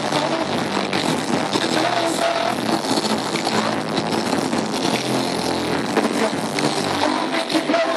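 Live rap performance over a loud backing track through a venue PA, heard from the audience, with the rapper's voice mixed into the music.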